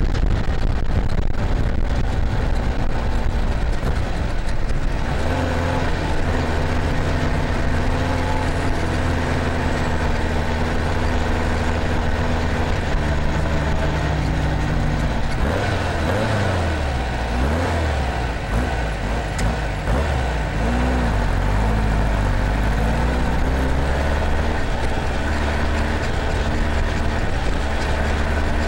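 Truck engine running, its pitch swinging up and down as it is revved through the middle stretch, then steady again.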